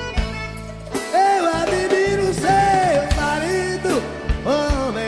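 Live forró band music: drum hits, then about a second in a melody enters, played in two parallel lines over sustained bass notes.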